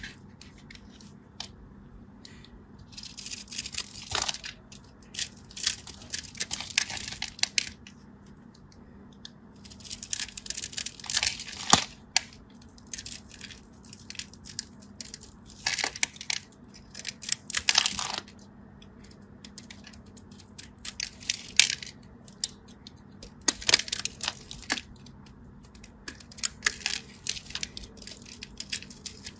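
Kinetic sand clay being cracked and crushed by hand: crisp crackling and crunching in repeated bursts a second or a few seconds long, with short pauses between.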